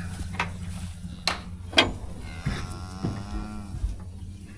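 A bull mooing once, a call of a little over a second about two and a half seconds in, after a few sharp knocks.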